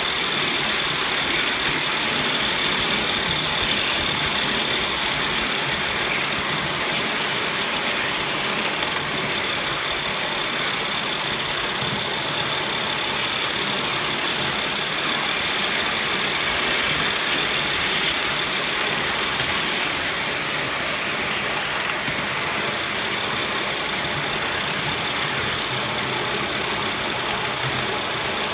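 LBSC Heilan Lassie 3.5-inch gauge live steam locomotive running at speed. The wheels rush on the rail and the exhaust blows steadily, with a constant hiss high in the sound.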